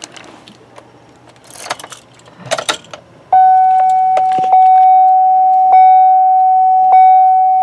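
Keys jangling and rustling as they are handled, then from about three seconds in a loud, steady electronic tone, with a faint click about once a second.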